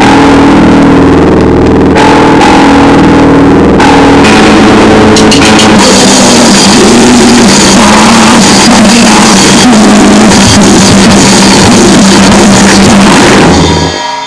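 Crust punk / noisecore music: drums pounding under a dense wall of heavily distorted sound. It starts abruptly and breaks off shortly before the end.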